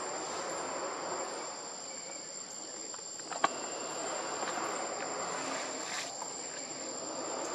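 Steady chorus of forest insects with a constant high-pitched whine, broken by one sharp click about three and a half seconds in.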